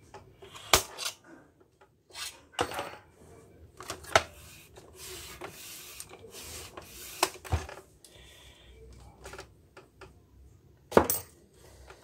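Plastic parts of a partly disassembled Epson L361 inkjet printer clicking and knocking as they are handled by hand. The clacks are sharp and irregular, the loudest near the end.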